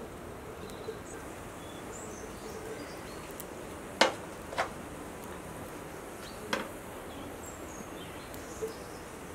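Steady outdoor hiss with a few sharp pops or ticks, the loudest about four seconds in, and faint high chirps in the background.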